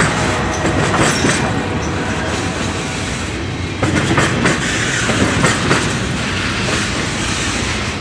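Freight train of flatcars carrying track-maintenance machines rolling past close by. The wheels rumble and clack over the rail joints, with a sharper run of clacks about halfway through.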